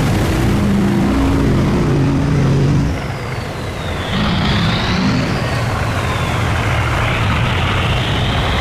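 Boat engines running as boats pass through the canal culvert, their pitch shifting up and down as they change speed. A faint high whine falls and then rises, and the noise dips briefly about three seconds in.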